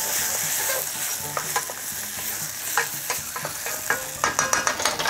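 Wooden spatula stirring diced aubergine and onion frying in a saucepan: a steady sizzling hiss, with scrapes and knocks of the spatula against the pan that grow busier near the end.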